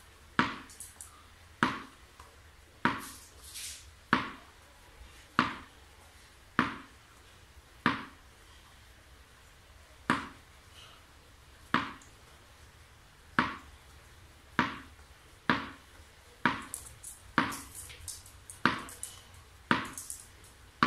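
A tennis ball bouncing on a hard floor and being caught again, one sharp bounce about every second and a quarter, with a longer pause about eight seconds in.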